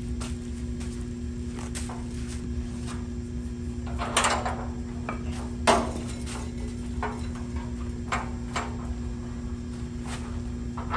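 Scattered metal clunks and knocks as a radiator and the truck's sheet-metal radiator core support are handled and set in place, the two loudest about four and six seconds in. A steady hum runs underneath.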